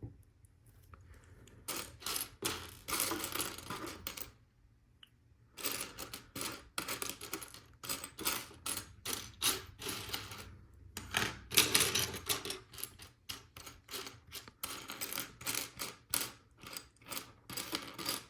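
Loose plastic LEGO Technic pieces clattering and clicking against each other as they are handled and shifted about by hand, in dense runs with a couple of short pauses.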